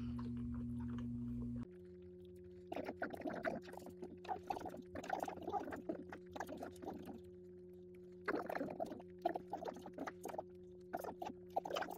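Close-up chewing and mouth sounds from eating cheese-stuffed-crust pizza, in irregular clusters, over a steady low hum that drops in level and changes pitch a couple of seconds in.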